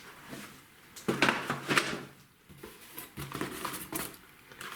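Fireworks packs being handled and set down: a run of knocks, clicks and rustles, busiest about a second in.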